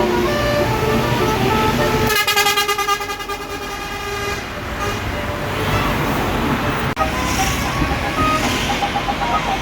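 Bus basuri telolet horn, its roof-mounted trumpets playing a tune of short notes that jump between pitches. About two seconds in there is a louder, brighter horn blast that fades over the next couple of seconds, and the short notes come back near the end.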